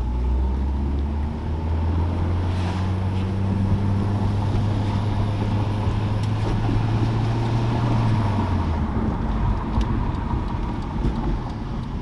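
Nissan SR20DET turbocharged four-cylinder engine pulling under acceleration, its note rising steadily for about eight seconds and then falling away, with road noise underneath. It runs smoothly on freshly fitted fuel injectors and sounds back to normal after its misfire.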